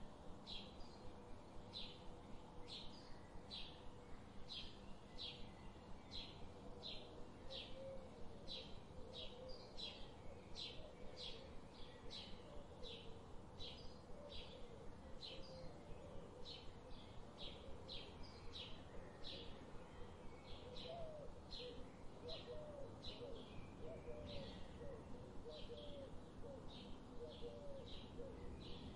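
Forest birds calling: a short high note repeated steadily about twice a second, with lower warbling notes joining about a third of the way in and growing stronger toward the end.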